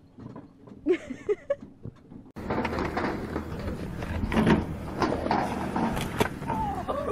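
Skateboard wheels rolling and clattering on concrete, with several sharp knocks as a board and a rider go down, over children's voices. This starts suddenly about two and a half seconds in, after a quiet start.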